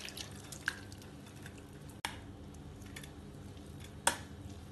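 Soaked rolled oats and their soaking water poured from a steel bowl into a mesh strainer: soft trickling and dripping as the water drains, with three short metallic clicks of bowl against strainer, the loudest near the end.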